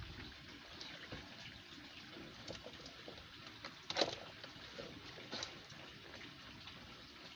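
Faint water trickling and sloshing, with a short sharp splash or knock about four seconds in and a lighter one about a second later.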